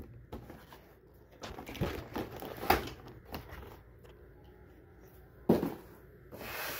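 Handling noise from a cardboard box and the phone being fumbled: scattered scrapes and light knocks, with one sharp knock about five and a half seconds in.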